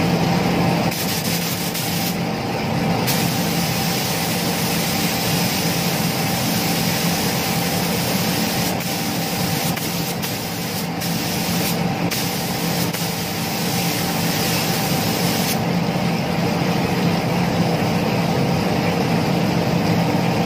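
Gravity-feed spray gun hissing as it sprays clear coat onto a motorbike body panel, held in steady passes. The air cuts briefly about two seconds in and twice around the middle, then stops about five seconds before the end, over a steady machine hum.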